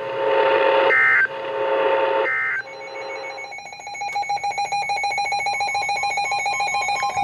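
Emergency Alert System end-of-message data bursts: harsh digital bursts, each ending in a short high chirp, come three times about 1.3 s apart. A steady, rapidly pulsing set of electronic tones follows.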